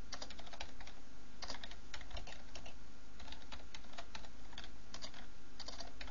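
Typing on a computer keyboard: quick, uneven key clicks with brief pauses, over a faint steady low hum.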